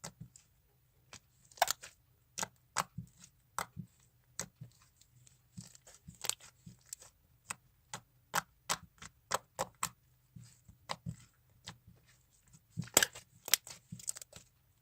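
Slime with foam balls and glitter being mixed, giving irregular sticky clicks and pops, a couple a second, with a denser run of pops near the end.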